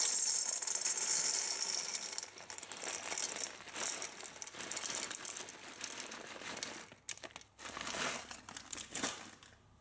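Dry popcorn kernels poured from a plastic bag into a plastic measuring cup: a steady rattling patter of kernels landing, with the bag crinkling. After about seven seconds the pour stops, leaving a few scattered clicks.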